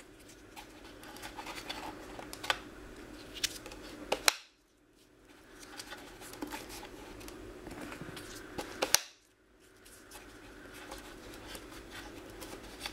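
Plastic handling clicks and scratches as foam darts are pushed into the clear barrel cluster of a Nerf Air Tech 3000 through its rear loading slot, with a few sharp louder clicks. The sound cuts out briefly twice, right after a loud click.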